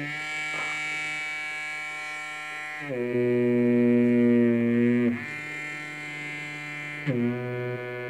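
Small vibrator motor in remote-control vibrating panties running with a steady buzz. It shifts in steps to a new pitch and loudness about three seconds in, again about two seconds later, and once more near the end, as it changes vibration setting.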